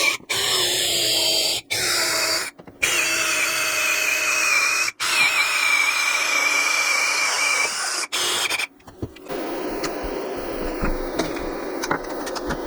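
A power tool running at speed with a wavering high whine, cut off abruptly several times, then a quieter, lower steady machine sound over the last few seconds.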